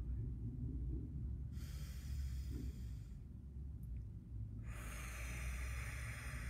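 A woman taking slow, deep breaths: quieter breaths in, and two long, airy breaths out through the mouth, one about a second and a half in and another near the end. A low steady hum runs underneath.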